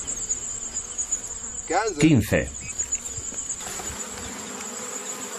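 A steady, high-pitched trill of insects in the grass. About two seconds in, a man's voice briefly calls a number into a radio.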